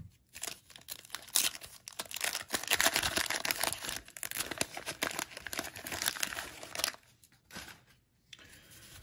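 Wax paper wrapper of a 1989 Topps football card pack being torn open and crinkled by hand, a dense crackling that eases off about seven seconds in.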